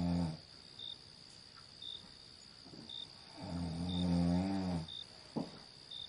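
A person snoring with low, drawn-out snores: one trails off just after the start and another comes about three and a half seconds in. Underneath is a steady high insect buzz, with a cricket chirping about once a second.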